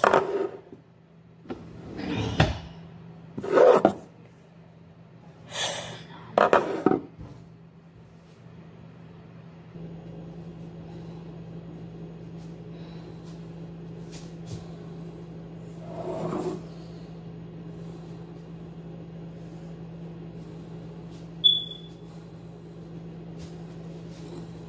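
Cupboard doors and drawers banged open and shut several times in quick succession during a rummaging search. After that comes a steady low hum, with one more knock and a short high beep near the end.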